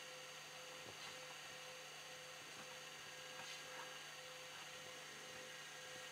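Near silence: a faint steady hum and hiss, with a few faint soft ticks.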